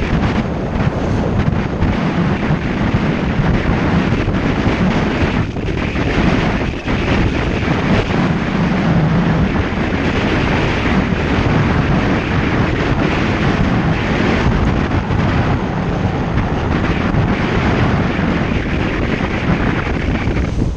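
Wind rushing over the microphone of a camera on a moving bicycle: a loud, steady noise, dipping briefly twice about six seconds in.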